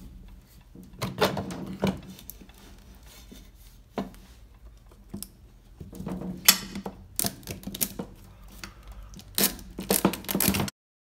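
Metal parts of a permanent-magnet washing-machine motor clinking, knocking and scraping as it is pulled apart by hand: the aluminium end housing coming off the steel stator and the pieces being set down on a table. Several separate bursts of clatter, with the sound cutting off abruptly near the end.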